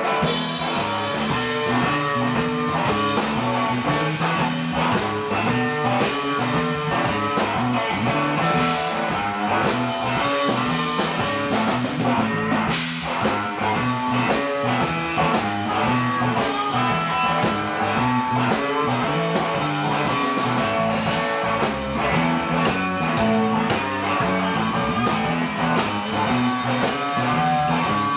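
A rock band playing live without vocals: distorted electric guitars over a Tama drum kit, with steady cymbal and snare hits and a cymbal crash a little under halfway through.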